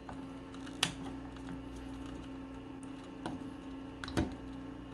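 Small plastic clicks and handling sounds as a 9-volt battery is snapped onto its clip and fitted into an electronic keypad door lock's housing, with two sharper clicks, one about a second in and one near the end, over a steady low hum.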